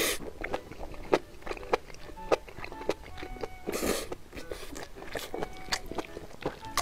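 Close-up chewing of a mouthful of saucy mixed noodles, with many wet mouth clicks and smacks, and a short slurp about four seconds in. Background music plays under it.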